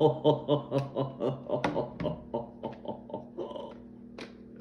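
A man laughing, a long run of rhythmic 'ha' pulses, about four or five a second, that fades away over a few seconds, followed by a few light clicks of plastic being handled.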